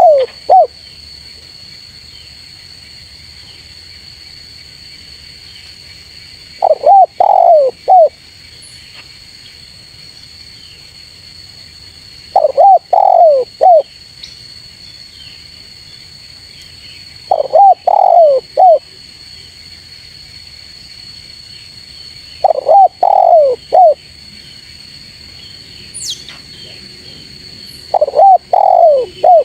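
Spotted dove (tekukur) cooing: a short phrase of several quick, falling coos, repeated about every five and a half seconds. It is the full call used to lure rival doves. A steady high-pitched drone runs underneath.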